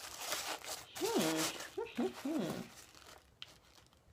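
Paper packaging crinkling and rustling as items are taken out of a subscription box, with a brief hum or murmur of a voice in the middle.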